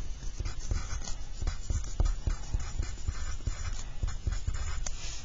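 Pencil writing on paper: a quick run of irregular scratches and taps as an equation is written out by hand.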